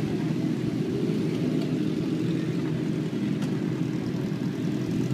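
Several sport motorcycle engines running at idle together, a steady low engine sound that does not rise or fall.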